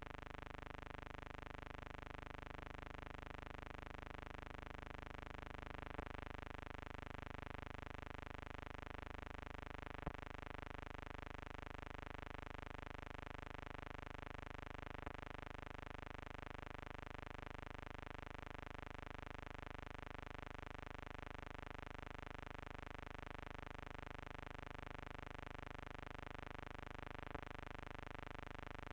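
A faint, steady electrical buzzing hum, unchanging throughout, with a few faint clicks scattered through it.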